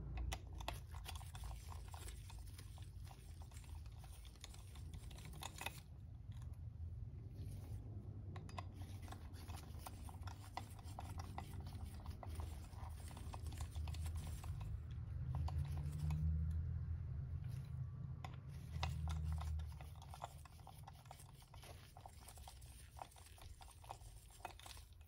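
Small hex screwdriver turning out tiny threadlocked screws from a supercharger seal ring, with scratchy rubbing and small metal clicks as the bit works and the screws are set down, over a low rumble.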